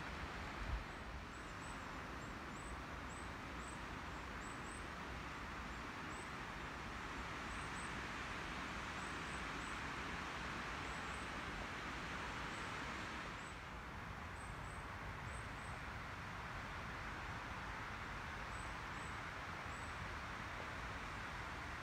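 Steady rushing outdoor background noise, with a couple of soft knocks in the first second and faint, very high, short chirps scattered throughout.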